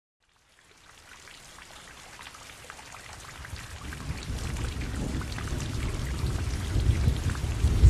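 Rain falling, with many fine drop ticks, fading in steadily from near silence. A low rumble builds underneath from about halfway through.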